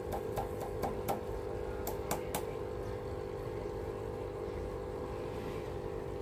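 Slow, regular ticks, about four a second, then a few separate clicks about two seconds in: brine dripping from the clogged drain tube and valve of an Artemia hatching bottle into a ceramic bowl while the valve is worked by hand. A steady low hum runs underneath.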